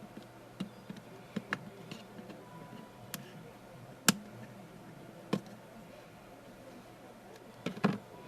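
Sharp, irregular clicks and taps of small tools and plastic phone parts being handled during a phone repair, the loudest about four seconds in and a quick double click near the end, over a faint steady hum.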